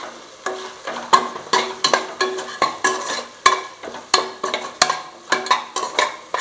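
A perforated metal spoon scrapes and knocks against the inside of a metal pressure cooker, about three strokes a second, while stirring spice powders into a frying onion-tomato masala. The pot rings briefly with each knock, over a light sizzle of the masala frying in oil.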